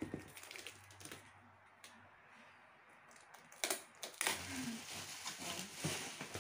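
Bubble wrap and plastic packaging rustling and crinkling as it is handled. The crinkling goes quiet for a couple of seconds, a sharp click comes about three and a half seconds in, and steady crinkling follows.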